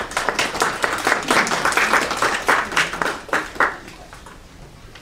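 An audience applauding. The clapping fades out about four seconds in.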